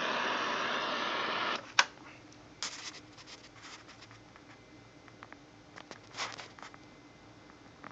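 Satellit 800 shortwave receiver's loudspeaker putting out static hiss with faint steady tones, which cuts off abruptly about a second and a half in. A sharp click follows. After that there are only scattered small clicks and rustles of handling.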